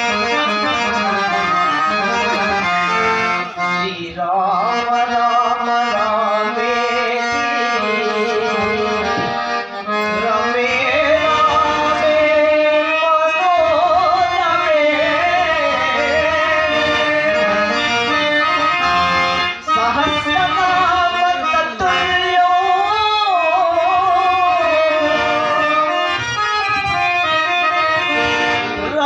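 Bhajan music: a harmonium playing the melody, with a man singing over it in wavering, ornamented phrases and tabla keeping time.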